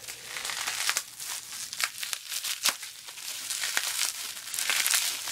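Plastic packaging, a zip-lock bag and bubble wrap, crinkling and crackling as it is handled by hand, with many short sharp crackles. It is loudest near the end.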